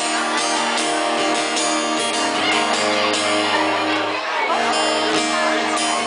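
Live band's amplified guitars strumming sustained chords, with a bass note joining about two and a half seconds in and a short break just after four seconds.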